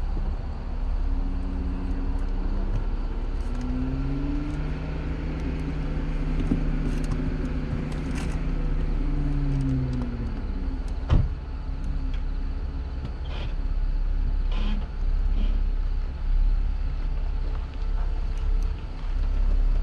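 Jeep Wrangler Rubicon engine running on a slow rock descent, its pitch rising, holding and falling back over several seconds, over a steady low rumble. A single sharp knock comes about eleven seconds in, with a few lighter knocks after it.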